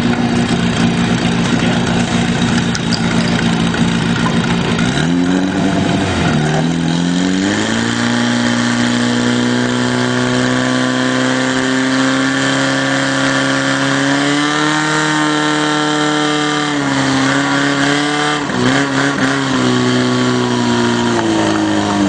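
Portable fire pump's engine running hard with a steady pitched drone. About five seconds in the revs dip, then climb to a higher, steady pitch as the pump is throttled up to push water through the hose lines, wavering briefly a few seconds before the end.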